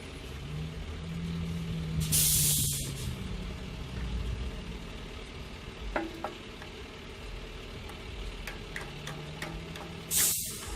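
Two short, loud bursts of hissing, one about two seconds in and one near the end, with a low steady hum and a few light clicks between them.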